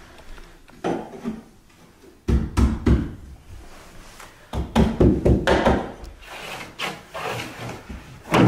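Repeated dull thuds and scraping as a carpet edge is worked and tucked against the baseboard with hand tools, in several quick clusters of blows.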